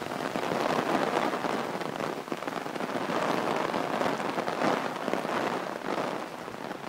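Heavy rain falling on wet pavement and grass: a steady, dense patter.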